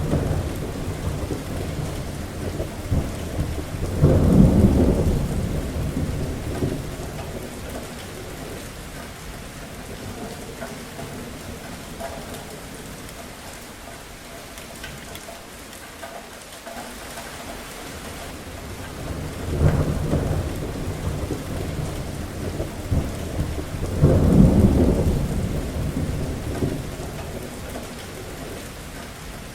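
Steady rain falling, with rolls of thunder: a low rumble swells about four seconds in, and two more roll in near twenty and twenty-four seconds, each fading slowly back into the rain.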